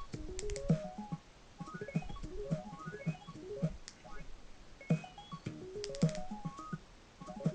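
Music playing from a Bluetooth speaker: quick rising runs of synth-keyboard notes that repeat about every two seconds over a low beat.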